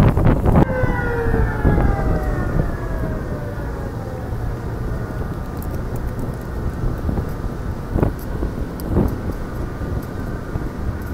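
A siren-like whine of several tones sliding down in pitch together over about four seconds, then settling into a steady hum over a low rumble, with two short knocks near the end.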